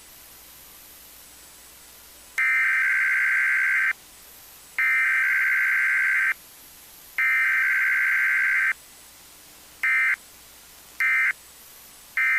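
EAS unit relaying a test: three SAME digital header bursts, about a second and a half each, a buzzy warbling data tone. They are followed by three short end-of-message bursts, over a steady radio hiss.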